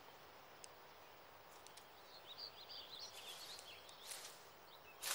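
Faint forest ambience, with a cluster of short, high chirps about two seconds in and two brief rustles near the end, like movement through dry leaves and brush.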